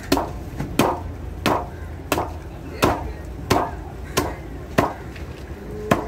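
Large knife chopping a snapper on a wooden log chopping block: about nine sharp, even chops, one roughly every two-thirds of a second.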